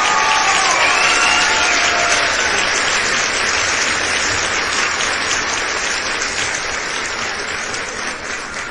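A crowd clapping and cheering, with shouts and whoops over the applause in the first couple of seconds. The clapping then carries on alone and slowly fades toward the end.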